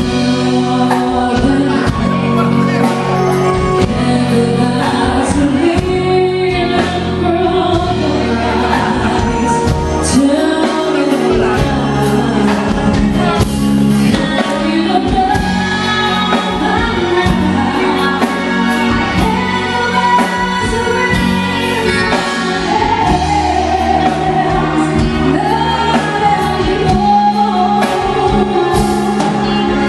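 Live band music with a woman singing lead into a handheld microphone, over drum kit, bass and guitar.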